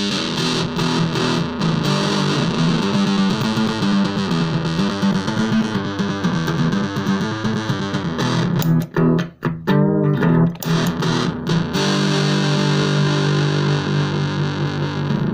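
Electric guitar played through a MAD BOX 'Black Master' Big Muff fuzz pedal, giving a thick fuzz tone. A few short, choppy stabs come a little past the middle, and then a long held chord near the end.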